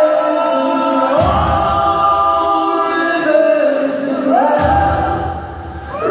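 Several voices of a live folk-rock band singing a long held refrain in close harmony, the lines gliding between notes. Low percussion comes in underneath twice.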